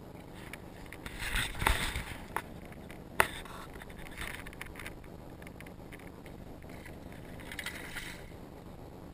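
A hooked fish thrashing and splashing at the water's surface in several bursts, with one sharp click a little over three seconds in, over a steady background rush.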